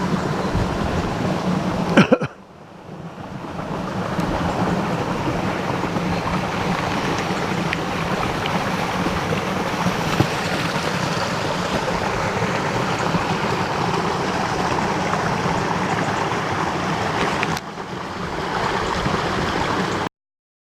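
Running stream water, a steady rushing. About two seconds in there is a sharp knock, after which the sound drops and swells back. It cuts off suddenly near the end.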